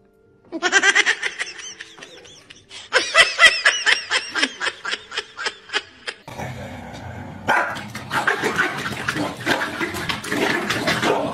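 Two bursts of quick, high-pitched squeals, then, from about six seconds in, two Pembroke Welsh corgis growling and barking at each other in a scuffle.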